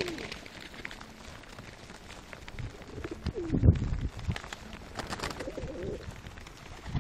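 A flock of fancy domestic pigeons cooing, with low rolling coos: the loudest about three and a half seconds in, another shortly after five seconds. Scattered light clicks run between the calls.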